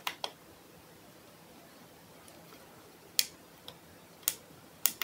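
Sharp plastic clicks from the front-panel push buttons and rotary encoder knob of a ZK-4KX buck-boost converter module being operated: two quick clicks at the start, then four or five more spaced out over the last two seconds.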